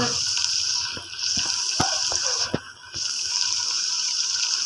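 Oil sizzling steadily in an aluminium pressure cooker as onions and tomatoes fry, with a few light knocks; the sizzle dips briefly twice.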